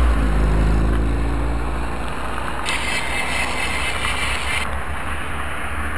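Wind buffeting the microphone of a bicycle-mounted camera, with a steady low rumble of riding on asphalt, while a car's engine passes close by and fades over the first second or two. About three seconds in, a high hiss cuts in abruptly and stops just as sharply about two seconds later.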